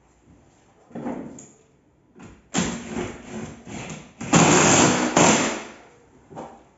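Scraping and knocking on a window frame as it is worked by hand: a short scrape about a second in, then a longer, louder scrape from about two and a half seconds to just past five seconds, and a brief knock near the end.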